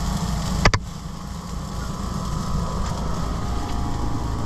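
An engine idling steadily in a low, evenly pulsing rumble, with one sharp click a little under a second in.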